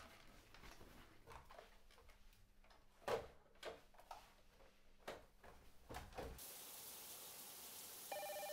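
A few faint knocks and clunks, the loudest about three seconds in, then a steady faint hiss. Near the end a telephone begins to ring.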